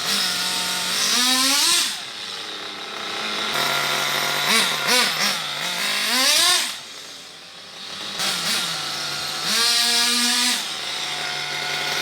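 Nitro RC car's small two-stroke glow engine running and being revved in short bursts: the pitch sweeps sharply up about two seconds in, several times between four and seven seconds, and again near ten seconds, falling back to a lower steady run between. The engine has just been rebuilt, with its piston freed, and is being test-run.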